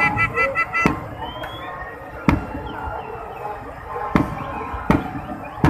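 Aerial firework shells bursting overhead: about six sharp bangs at uneven intervals.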